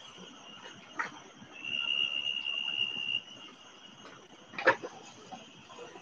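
Night insects trilling in a steady high chorus, with one louder, level trill starting about a second and a half in and lasting about a second and a half. Two brief knocks, about a second in and near five seconds, come from handling cuttings and plastic.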